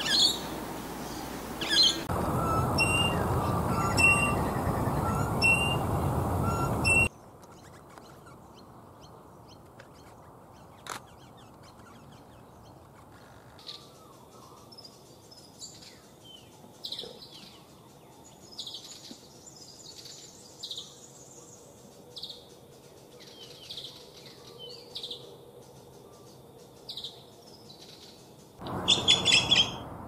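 Eastern rosella giving repeated short, high calls over a loud steady rush of noise. About seven seconds in the sound cuts to a much quieter background of scattered short bird chirps, with a brief burst of louder bird calls near the end.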